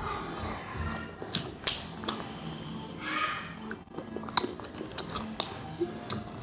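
Close-up mouth sounds of popcorn being licked up and chewed right at the microphone: irregular wet clicks, smacks and small crunches.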